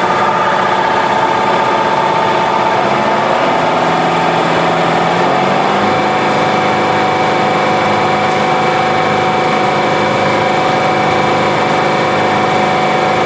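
Duramax V8 diesel engine running, its speed rising over the first several seconds and then holding steady at about 3,100 rpm.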